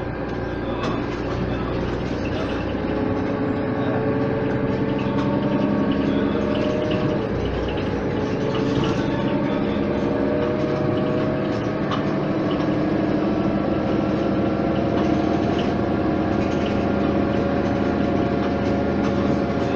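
Mercedes-Benz O 530 Citaro bus's OM 906 hLA inline-six turbodiesel pulling away under load, heard inside the passenger cabin, its pitch rising. About seven seconds in the pitch drops as the ZF Ecomat automatic gearbox shifts up, then it climbs slowly again.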